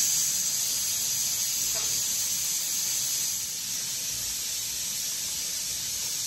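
Steam hissing steadily out of a pressure canner's vent pipe as the weighted regulator is held off, letting the pressure out after processing. The hiss eases slightly a few seconds in.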